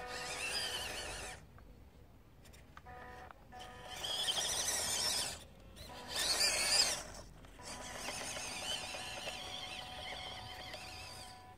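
Whine of a WPL B-16 six-wheel RC truck's small electric motor and metal drivetrain gears, coming in several throttle bursts with short gaps between them, the last burst the longest. The pitch wavers within each burst.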